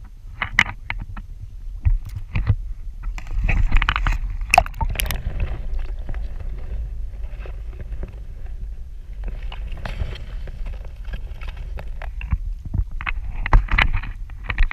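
Water splashing and sloshing around a camera held in shallow lake water, in bursts about three to five seconds in and again near the end, over a steady low rumble.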